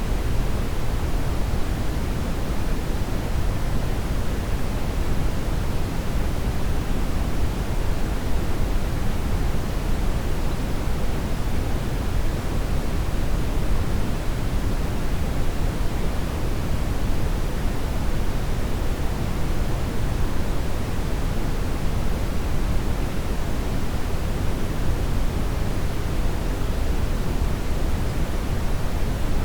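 Brown noise: a steady, even rumbling hiss, strongest in the bass and fading toward the treble, unchanging throughout.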